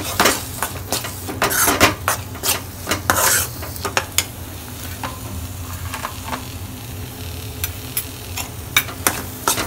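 Steel spoon scraping and clicking against a steel kadai while stirring a ground-onion paste frying in oil, with a steady sizzle underneath. The scraping is busiest in the first few seconds and again near the end, easing off in between.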